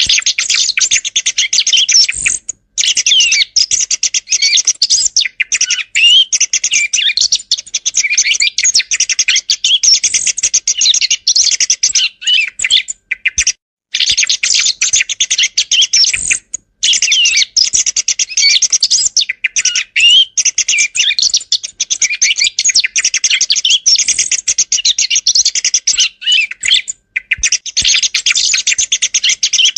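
Song thrush calls: a dense, almost unbroken stream of short, high chirps and quick squeaky glides, with a few brief pauses.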